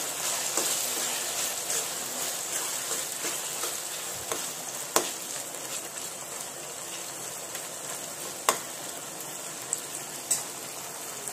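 Chopped tomatoes and onion masala sizzling in oil in a wok while being stirred with a steel spoon, the tomatoes being sautéed down until soft. The steady frying hiss carries a few sharp clicks.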